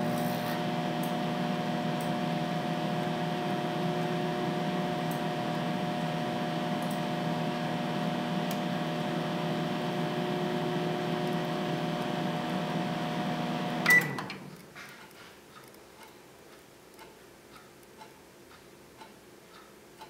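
Countertop microwave oven running with a steady hum, then about fourteen seconds in a short beep as it stops, and the hum cuts off. Faint regular ticking, about once a second, is left afterwards.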